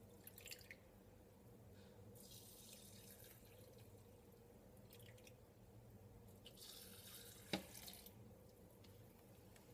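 Faint trickle of a milky rice-pudding mixture poured from a plastic jug's long spout into small glass yogurt pots, in two spells, with a light click about seven and a half seconds in.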